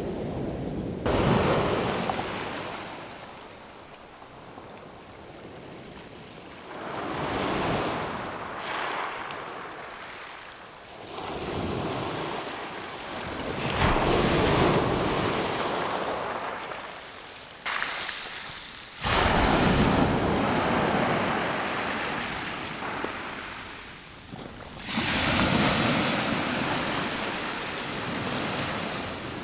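Waves breaking on a shingle beach, one after another every few seconds, each surge starting suddenly and then fading as the water draws back over the pebbles.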